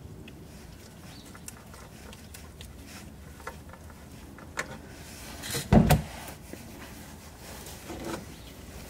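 Spin-on oil filter being unscrewed by hand from the engine block of a 1994 Toyota Celica GT-Four: faint scraping and clicking as it turns, with one loud thump about six seconds in and a softer knock near the end.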